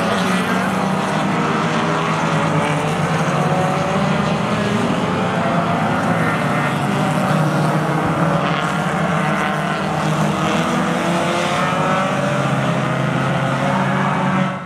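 A pack of race cars running together through a corner, many engines overlapping at once with their notes rising and falling. The sound cuts off suddenly at the end.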